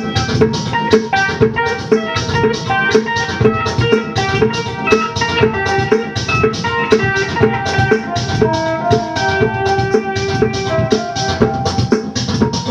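Pedal steel guitar playing held, gliding notes over a fast, steady drum and percussion beat.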